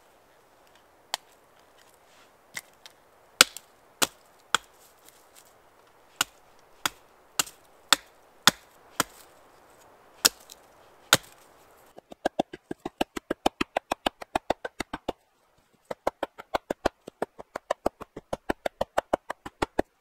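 Sharp wooden knocks as a birch stake is worked and driven into the ground: single blows about a second apart at first, then from about twelve seconds in a fast, even run of knocks, about seven a second, broken by a short pause.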